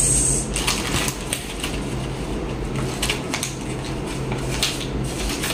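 Paper being handled, with light rustling and a few soft crinkles and ticks, over a steady low background hum.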